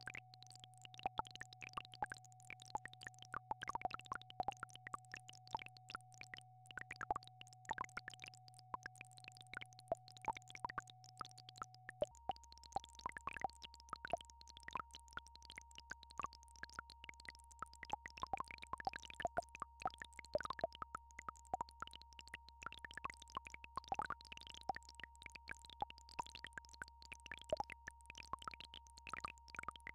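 Synthesized healing-frequency tones: a steady high tone over a low hum, both changing about twelve seconds in, when the tone steps up in pitch and the hum drops lower. Short soft plinks and clicks are scattered throughout.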